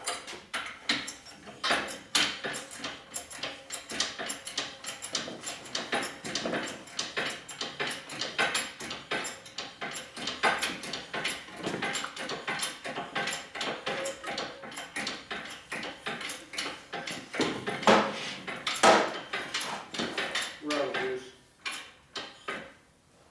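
Irregular metallic clinking, clattering and knocking of hand tools at work, with some low voices underneath.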